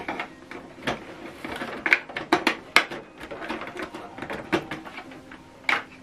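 Irregular sharp plastic clicks and taps as a USB cable plug is fumbled against the rear port and panel of a Canon PIXMA TS7451 printer while being fitted.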